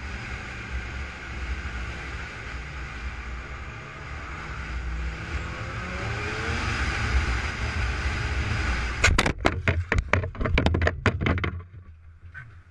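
Steady road and engine noise from a moving car. About nine seconds in comes a rapid run of sharp bangs and crunches lasting some two and a half seconds: a collision.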